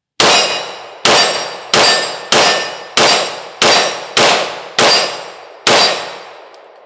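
Nine 9mm pistol shots from a SIG P365 FUSE fired at a steady pace, roughly two-thirds of a second apart, each shot ringing out and fading before the next. The last shot comes near the end and its tail dies away slowly.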